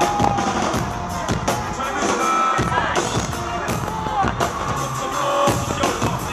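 Live rock drum kit played in a solo: fast, dense drum and cymbal hits, recorded from within a concert crowd.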